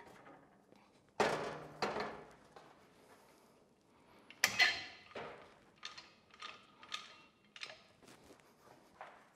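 Heavy steel lathe chuck hanging from a crane hook, knocking and clanking against metal as it is handled into a steel cabinet drawer. Two sharp clunks about a second in, a louder ringing clank near the middle, then a run of lighter metallic clicks about every half-second.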